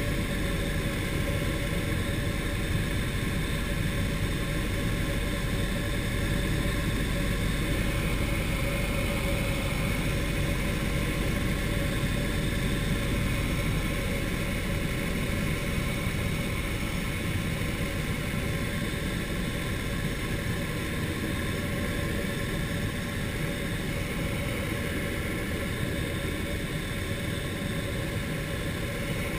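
Turner T40 light aircraft's piston engine and propeller running steadily in flight, heard from inside the cockpit.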